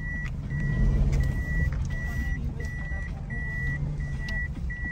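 A car's electronic warning beeper heard inside the cabin: a steady string of evenly spaced high beeps, about three every two seconds, over the low hum of the engine as the car moves off.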